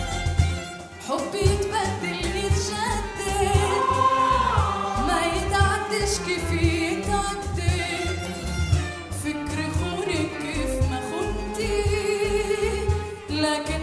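A woman singing an Arabic song solo into a microphone, her voice bending and wavering through ornamented runs, over live instrumental accompaniment with a steady low beat.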